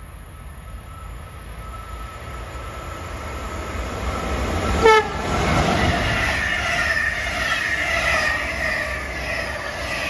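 A passenger train approaches with a rising rumble and sounds one short horn blast about five seconds in. Its double-deck coaches then rush past with loud wheel and rail noise.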